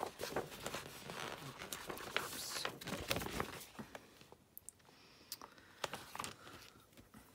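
Paper sheet rustling and crinkling as it is handled and turned over, busiest in the first half, then dying down to a few light ticks.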